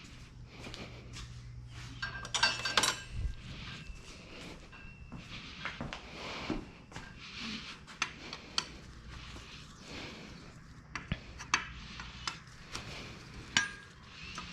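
Hand tools and small metal parts clinking and tapping while the oil filter is removed from a motorcycle engine, in scattered knocks with a quick run of ringing clinks about two seconds in.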